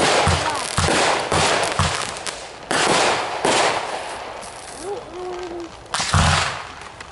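Aerial fireworks exploding: a quick run of sharp bangs about two a second, then longer noisy bursts, and a deep boom about six seconds in.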